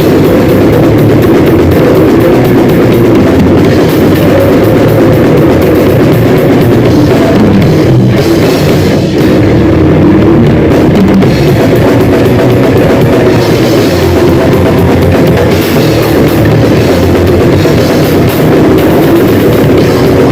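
Grindcore band playing: heavily distorted guitar over fast drumming, very loud and dense with no let-up.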